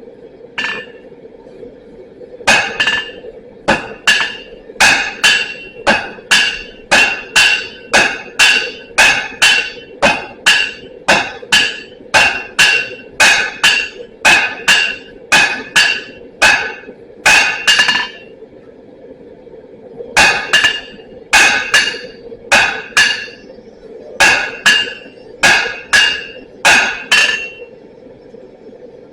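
Blacksmith's hammer striking steel on an anvil while forging, about two blows a second, each with a ringing tone. The blows come in a long run, stop for about two seconds, then resume for a shorter run. A steady hum sounds underneath throughout.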